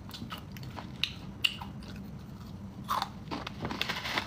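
Chewing and crunching food close to the microphone, with a few sharper crunches.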